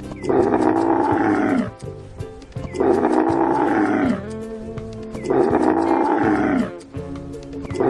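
An animal's loud drawn-out call, repeated three times with a fourth starting near the end, each call dropping in pitch as it ends, over background music.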